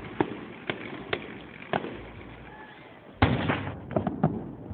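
Aerial fireworks bursting: separate bangs about a second apart, then the loudest bang a little over three seconds in, followed by a quick cluster of smaller pops.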